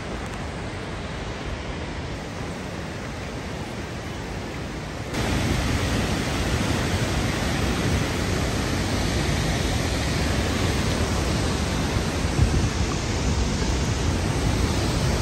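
Steady rushing of a waterfall, an even roar with no pitch, which steps up louder about five seconds in.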